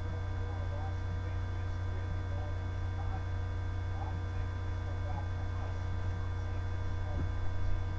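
Steady electrical hum, made of a strong low drone and several fainter steady tones above it. About seven seconds in there is a brief soft knock as the cap is handled.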